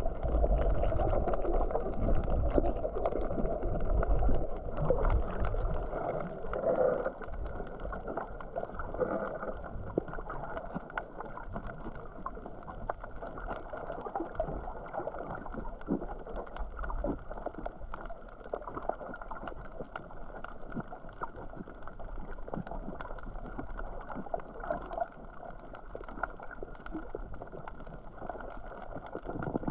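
Muffled underwater wash of moving water, with many faint clicks and crackles throughout. There is a louder low rumbling in the first few seconds, and after that a steadier, quieter wash.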